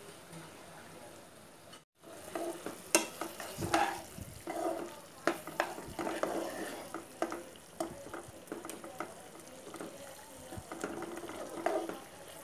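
A white slotted spatula stirring and scraping chicken masala in a nonstick pan, the thick gravy sizzling underneath. The spatula makes irregular knocks and scrapes against the pan, starting after a brief drop-out about two seconds in.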